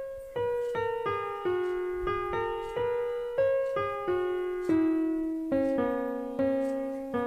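Background piano music: a gentle melody of single notes struck about every half second, each fading away before the next.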